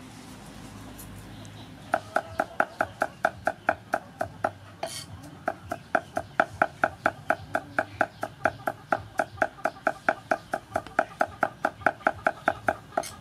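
Cleaver chopping garlic on a round wooden chopping block: quick, even strokes about four a second, each a sharp knock with a slight ring, starting about two seconds in, with a short break around the middle.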